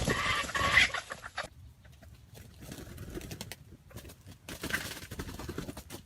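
A wild jungle fowl rooster's crow, which breaks off about a second and a half in. Then come faint scattered ticks and rustling, and a shorter fowl call near five seconds in.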